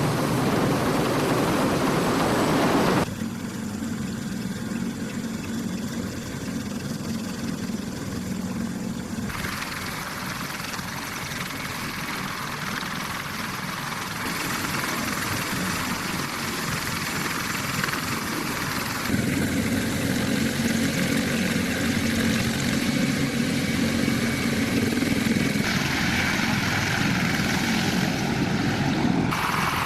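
CH-53E Super Stallion helicopter's rotors and turbine engines running, a loud steady din that changes abruptly in level and tone several times.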